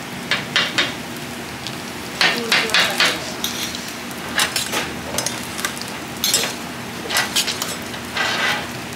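Oil sizzling steadily on a flat griddle as veggie-and-egg pancakes fry, with a metal spatula and tongs repeatedly scraping and clinking against the griddle and the square metal pancake rings.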